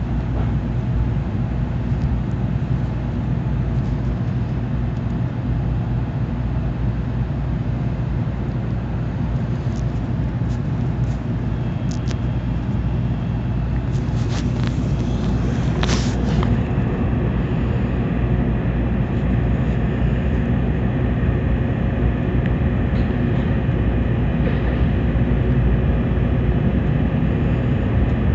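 Tokaido Shinkansen train running at speed, heard inside the passenger car as a steady low rumble, with a few light clicks partway through.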